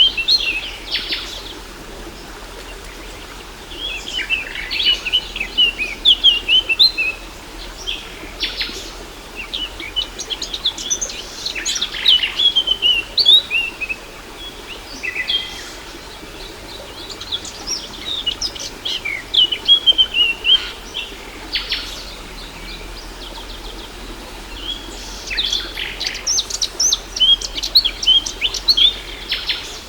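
Songbirds singing in repeated bursts of quick chirps and trills, with short pauses between phrases, over a steady background rush of a waterfall.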